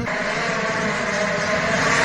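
Rally car engine running hard, heard from a distance as the car speeds away on a gravel stage, under a steady rushing noise.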